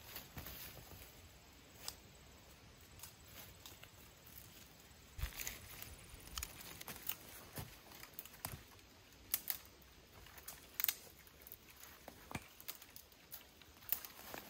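Faint rustling of brush and leaves, broken by scattered sharp snaps and clicks of twigs and branches, as a person moves through forest undergrowth and handles saplings and dead branches.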